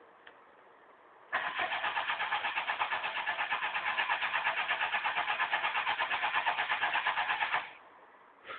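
Fiat Uno's starter motor cranking the engine for about six seconds with an even, rapid pulsing, without the engine catching. It then cuts off. The uploader's tags put the hard start down to pedal pumping and a flooded engine.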